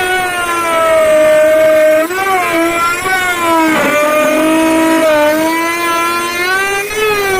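Electric wood router motor spinning at high speed with a steady whine, its pitch dipping briefly about two seconds in and again near four seconds as the bit bites into the wood.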